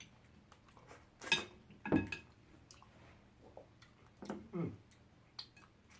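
Mealtime eating sounds: scattered light clinks of dishes and cutlery and mouth noises, with a short wordless voice sound a little after four seconds in.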